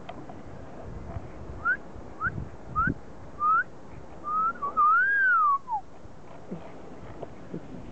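A person whistling: four short rising notes, then one longer note that rises and falls.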